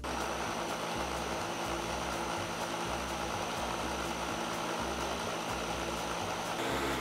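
Countertop blender motor running steadily on medium speed, blending a thick smoothie of frozen fruit and spinach. It starts suddenly and is switched off near the end, winding down.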